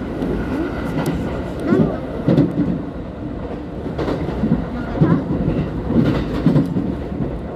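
Kintetsu Nara Line commuter train running, heard from inside the carriage: a steady low rumble of wheels on the rails.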